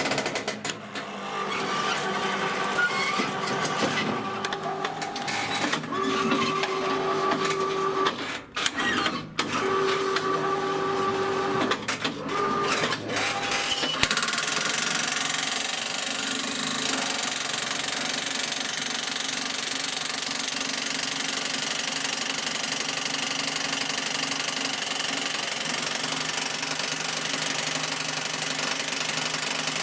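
Homemade electric jackhammer attachment running with a rapid mechanical clatter and a motor whine. It stops and starts several times in the first half, then runs continuously from about halfway on.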